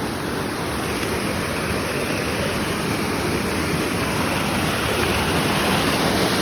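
Steady rush of water from a mountain stream and falls, growing slightly louder toward the end.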